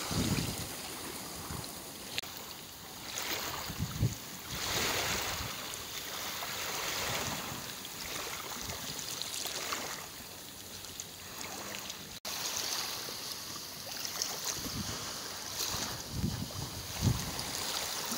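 Wind buffeting the microphone in gusts, with low thumps, over a steady wash of lapping waves.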